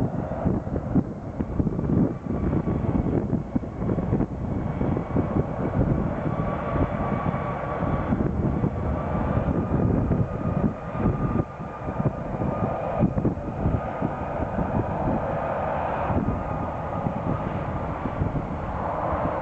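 Airliner's engines running with a low rumble and a faint high whine that holds its pitch, with wind buffeting the microphone.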